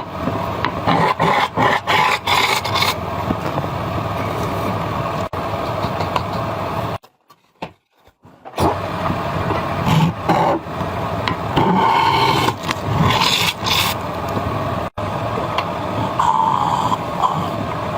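Wood lathe running while a turning tool scrapes and cuts the spinning wood, in many short scraping strokes. The sound cuts out for about a second and a half about seven seconds in, then resumes.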